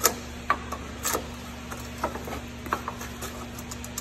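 Ratchet working a cap-style fuel filter wrench to loosen a tight spin-on fuel filter on a Cummins X15 diesel: scattered sharp metal clicks and knocks, irregularly spaced, over a steady low hum.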